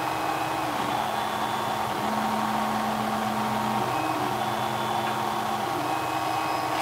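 A steady fan-like hiss under soft held tones that change pitch every second or two, like quiet background music.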